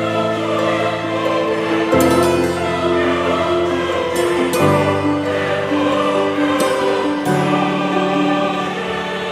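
Background music with sustained chords that change about every two and a half seconds.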